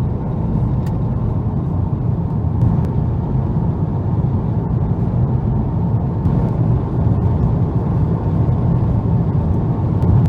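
Steady low road rumble of a car driving, heard from inside the cabin, with a few faint ticks.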